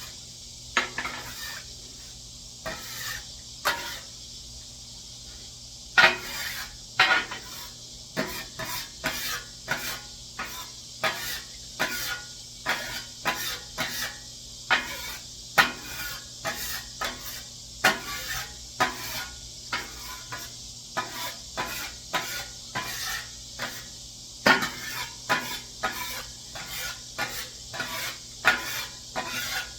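Cooking oil sizzling with a steady hiss on a hot steel flattop griddle while a metal scraper scrapes and knocks against the griddle surface in quick repeated strokes, a few at first, then about one or two a second from about six seconds in.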